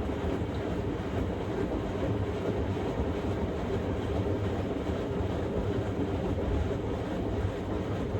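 Samsung Grande front-loading washing machine running a quick-wash cycle, a steady low rumble from the turning drum.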